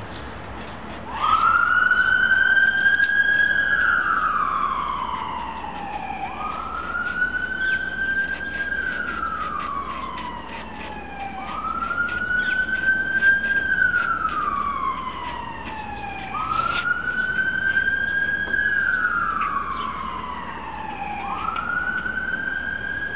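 Siren wailing, its pitch rising fast, holding briefly, then sliding down, in a cycle that repeats about every five seconds and starts about a second in.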